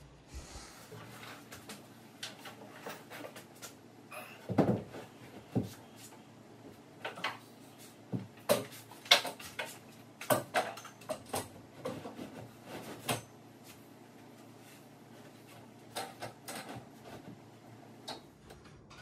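Irregular knocks, taps and light clatters of tools and cabinet parts being handled and set down during cabinet installation, busiest in the middle stretch, with a few more near the end.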